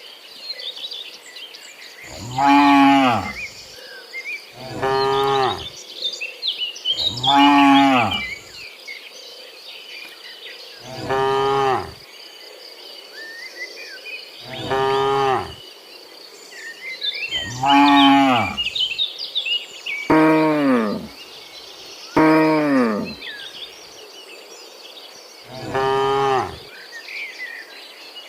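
Cattle mooing: about nine long, drawn-out moos, each falling in pitch, a few seconds apart.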